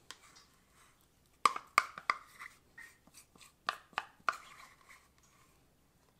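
Metal spoon scraping and tapping inside a small plastic jar while scooping out thick sourdough starter: a string of sharp clicks and short scrapes in two clusters, one about a second and a half in and another about four seconds in.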